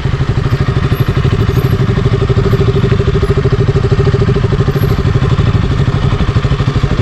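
Single-cylinder 200 cc motorcycle engine running steadily with an even pulsing beat.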